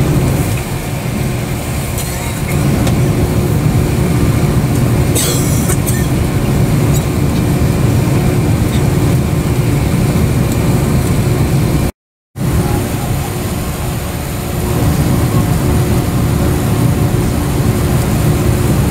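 Steady low drone inside the cabin of an Airbus A330-200 airliner standing on the ground, the hum of its air-conditioning and ventilation. It cuts out abruptly for a split second about twelve seconds in.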